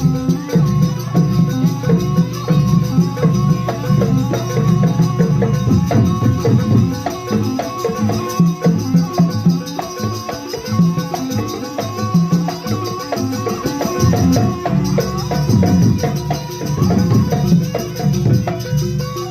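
Live Banyuwangi jaranan gamelan music: drums and percussion playing a busy, steady rhythm, with a held high note running over it.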